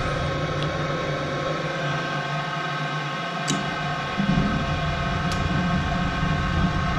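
Lennox EL296 gas furnace running on its low stage while calling for heat, its draft inducer motor giving a steady hum with several steady high tones, with a couple of faint clicks. The inducer is pulling good draft on low fire.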